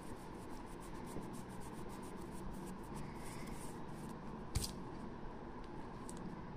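Faint rustling and rubbing of yarn being handled, stretched and worked onto a crocheted piece with a hook, with many small ticks and one sharper click about four and a half seconds in.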